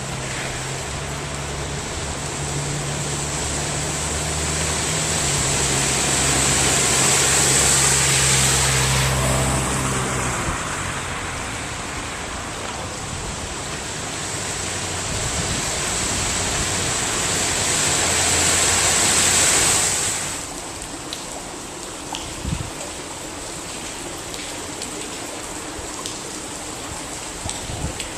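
Floodwater on a street rushing and splashing as a vehicle's engine runs through it, its tyres throwing up spray. The splashing rises and falls twice, loudest about eight and nineteen seconds in, the second swell cutting off suddenly, over a steady wash of running water.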